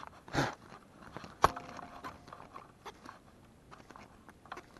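Handling noise of a fishing rod and reel held in the hands: a short rustle near the start, a sharp metallic click with a brief ring about a second and a half in, then scattered light ticks.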